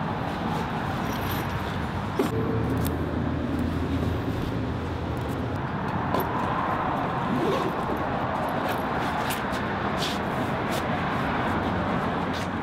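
City street ambience: steady traffic noise with a low hum, broken by a few light clicks and knocks.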